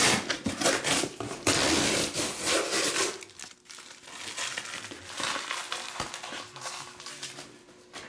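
Plastic shrink wrap on trading-card boxes crinkling and tearing as it is handled and pulled off, loudest for the first three seconds, then softer crackles.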